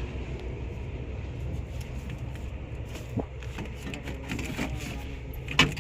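A truck's dashboard wiring harness being handled, with faint rustling and clicks of wires and plastic couplers over a steady low hum; one sharper click near the end.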